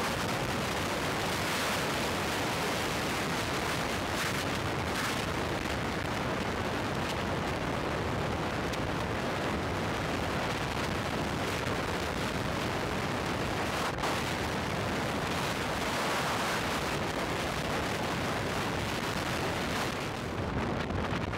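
Steady rushing wind buffeting the microphone of an action camera on a motorcycle at highway speed, drowning out the engine, with a brief knock about two-thirds of the way through.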